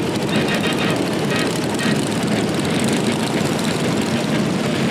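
Vintage garden tractors driving past in a line, their small gasoline engines running steadily at a travelling pace, one machine after another close by.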